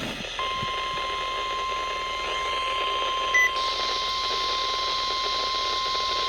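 NOAA Weather Radio warning alarm tone: one steady, unbroken high beep starting about half a second in, heard through a weather radio receiver with static hiss behind it. A short chirp cuts in a little after three seconds. The tone signals that a warning, here a severe thunderstorm warning, is about to be broadcast.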